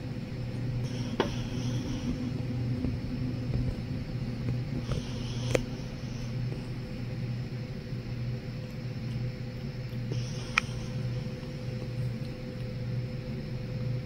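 A steady low mechanical hum with a faint steady higher tone above it, broken by three sharp clicks spread through it.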